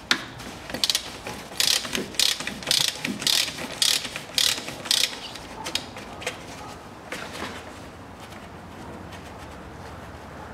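Hand socket ratchet clicking in repeated short strokes, about two a second, as it turns a hex plug on the Land Rover Discovery 3's ZF six-speed automatic transmission pan. After about five seconds the strokes become sparser and quieter.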